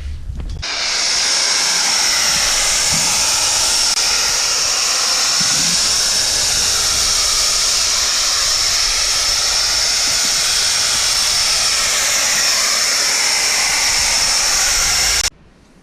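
Electric saw cutting granite: a loud, steady, high-pitched whine over a rushing noise that starts about half a second in and stops suddenly near the end.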